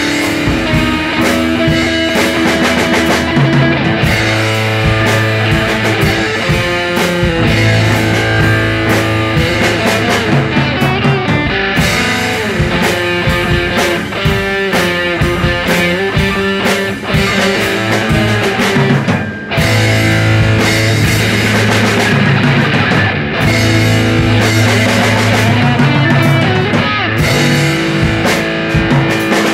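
Garage rock band improvising: electric guitar over a bass line and drum kit, playing loud and steady.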